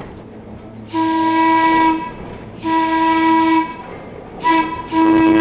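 Electric streetcar's horn blowing the grade-crossing signal: two long blasts, one short, then a long one, as the car nears a street crossing.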